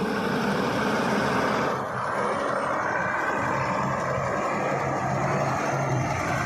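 Heavy diesel engine running steadily. About two seconds in, the level dips briefly and the high hiss thins out.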